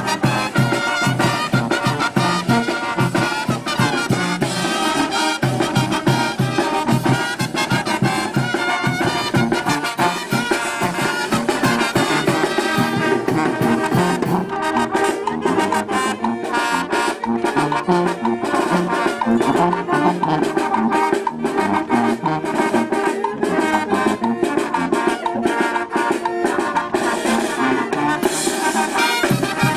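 Brass band with sousaphone playing a lively Latin dance tune with a steady beat.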